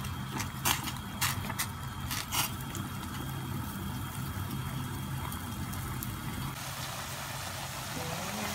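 A metal spoon clinks against a stainless steel pot of boiling instant noodles a few times in the first couple of seconds, over a steady low hum. About six and a half seconds in, the sizzle of saluyot and tuna frying in a pan takes over.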